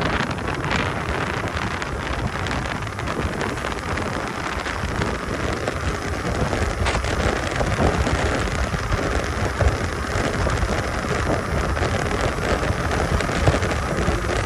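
Steady rushing, crackling noise of wind buffeting the microphone while riding an electric dirt bike.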